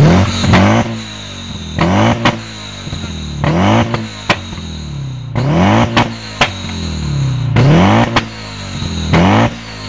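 Alfa Romeo 146's flat-four boxer engine blipped hard from idle about every two seconds, the revs climbing and falling away each time. Sharp exhaust pops and cracks follow each blip as the revs drop, the sign of unburnt fuel igniting in the exhaust and spitting flames.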